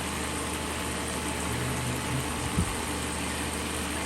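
Water spraying from a shower head into a shower pan, a steady hiss, over the steady hum of the recirculating shower pump. A single short knock about two and a half seconds in.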